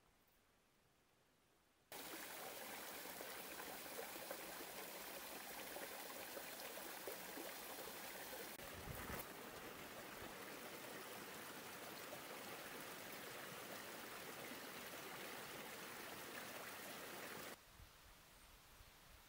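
Small mountain stream running over rocks: a steady rush of water that starts suddenly about two seconds in and cuts off near the end, with a dull low bump about halfway through.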